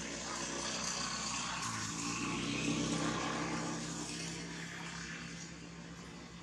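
A steady low motor drone under a hiss. It grows louder to about halfway, then fades toward the end.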